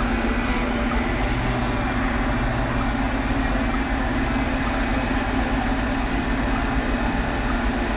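A steady mechanical rumble with a low hum, unbroken until it cuts off suddenly at the end.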